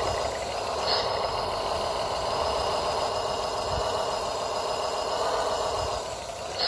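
Radio-controlled model vehicle's electric motor and gearbox whirring steadily, with a brief high chirp about a second in and another at the end; the whirr eases off about six seconds in.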